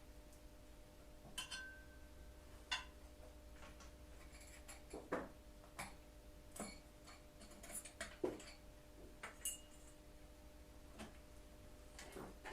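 Faint, irregular metallic clicks and clinks of hand tools and parts being handled while a motorcycle is taken apart, about a dozen over the stretch. A faint steady hum runs underneath.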